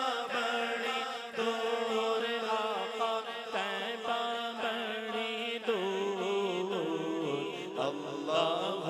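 Male voice singing an unaccompanied Urdu naat into a microphone, a long drawn-out wavering melodic line that dips in pitch about halfway through, over a steady drone of background voices.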